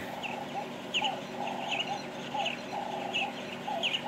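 Birds calling: short high chirps repeating about every 0.7 seconds over a lower, broken warbling call.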